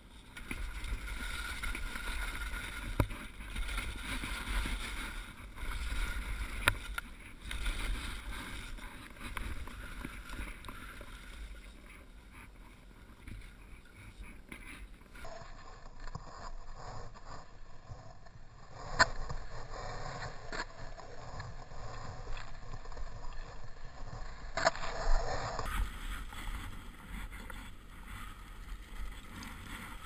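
Skis sliding and turning through powder snow, heard from a helmet-mounted camera as an uneven rushing hiss with wind on the microphone and scattered knocks.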